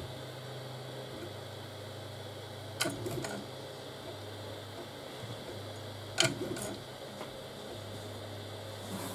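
3D printer running on TMC2208 stepper drivers: the stepper motors give only a quiet low hum that changes pitch several times as the moves change, over the steady whir of the printer's fans. Two sharp clicks stand out, about three and six seconds in.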